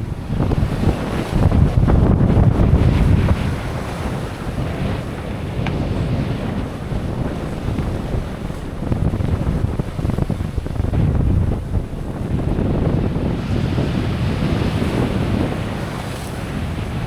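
Wind buffeting the microphone over the rush of sea and waves along a sailing yacht under way. It gusts hardest a second or so in and again around the middle, with a brighter hissing wash of water near the end.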